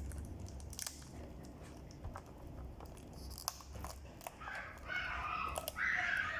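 Perfume packaging being handled during unboxing: crinkling and tearing of wrapping with scattered sharp clicks and taps.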